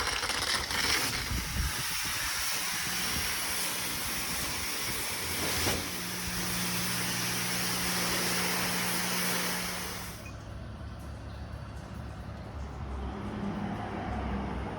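Car wash water spray hissing steadily over a low, steady machine hum, then stopping suddenly about ten seconds in.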